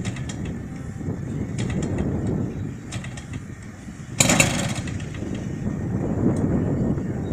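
A large radio-control model plane's engine being started by hand-flipping its propeller. There are a few faint clicks of the flips, and about four seconds in a single short cough of the engine that does not catch, over a steady low rumble.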